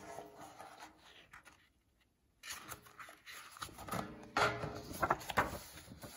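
Paper rustling as a page of a large picture book is turned and smoothed flat, with the loudest rustles and swishes about four to five seconds in.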